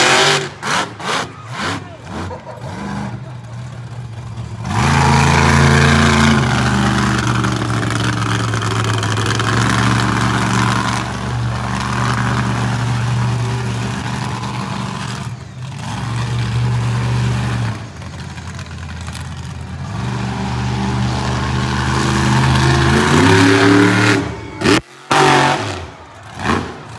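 Monster truck engine at full throttle: short choppy revs at first, then held steady at high revs for over ten seconds. Near the end there are a few rising and falling revs, with one sharp cut-off.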